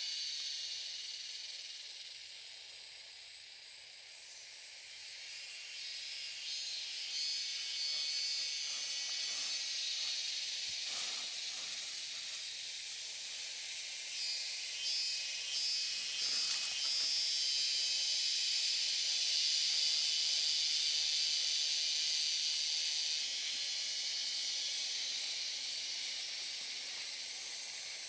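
Steady high-pitched chorus of forest insects that swells through the middle. Faint crackles of twigs and dry leaves come in between.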